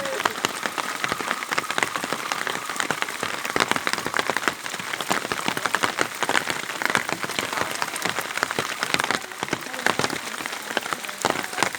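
Rain falling, with a dense, irregular run of sharp drop hits close by.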